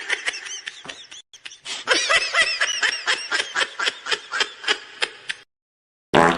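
A laugh sound effect: a snickering laugh made of a rapid run of short pulses, about five a second, that stops about five seconds in.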